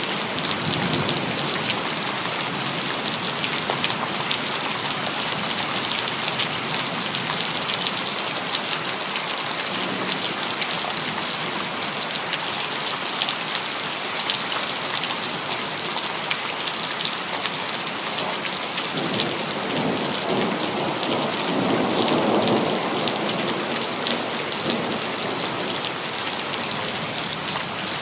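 Steady rain pattering on hard surfaces, with a low rumble of thunder swelling about twenty seconds in and dying away before the end.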